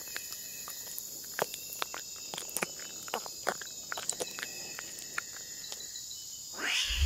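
Forest ambience of insects trilling steadily, with light scattered ticks and crackles like small footsteps on dry leaf litter. Near the end a rising swoosh sweeps up as a transition.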